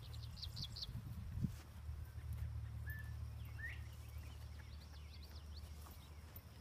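Birds chirping over a low steady rumble: quick runs of short notes about half a second in and again near the end, and a brief whistled note around three seconds. One soft thud about a second and a half in, likely a horse's hoof on grass.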